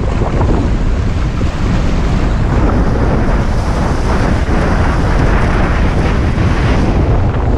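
Strong wind buffeting the microphone, loud and steady, over the rushing hiss and splash of water off a Rocket 145 windsurf board as it sails fast across choppy lake water.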